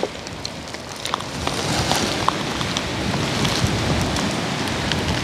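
Wood fire crackling under a fish on a grill rack: a steady hiss with a few small pops, a little louder from about a second in.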